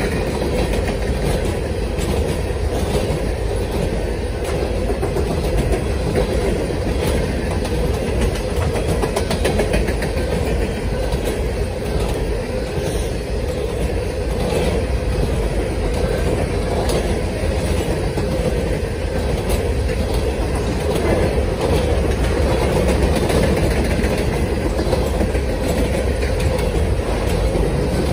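Norfolk Southern freight train of open-top hopper cars rolling past: a steady rumble of steel wheels on the rails, with wheels clacking over rail joints.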